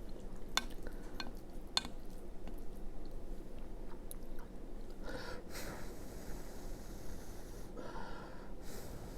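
Close-miked chewing of soft, wet food (tater tot casserole), with small sharp mouth clicks in the first two seconds and two short breathy noises about five and eight seconds in.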